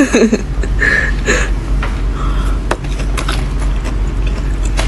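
A short laugh at the start, then a steady low hum with scattered small clicks and soft mouth noises.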